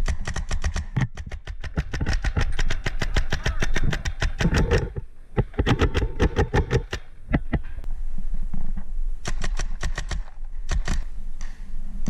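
Paintball markers firing in rapid strings, several sharp pops a second, thickest for the first seven seconds and then in shorter bursts.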